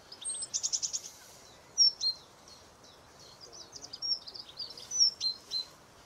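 Small songbirds singing and calling: a quick high trill about half a second in, then scattered high chirps and short whistled phrases, loudest about two seconds in and again near five seconds.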